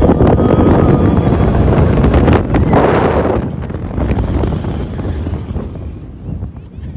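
Seven Dwarfs Mine Train roller coaster running along its track, with loud rushing wind buffeting the microphone. The rush eases about three and a half seconds in.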